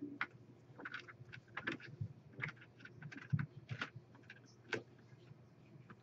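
Irregular small clicks and taps of metal and plastic as a RAM water block and its tiny mounting screws are handled and adjusted, over a faint low hum.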